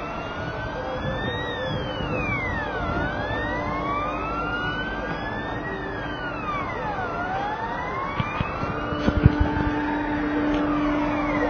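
Fire engine siren wailing, its pitch climbing slowly and falling quickly about every four seconds, over a steady low hum.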